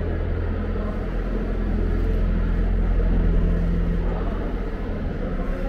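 Steady low rumble and hum of a large indoor exhibition hall's background noise.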